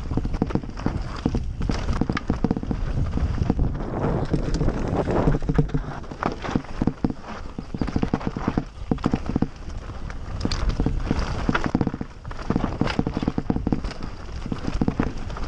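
Mountain bike descending a loose stony trail at speed: tyres crunching over the stones and the bike rattling in a constant irregular clatter, over a steady low rumble.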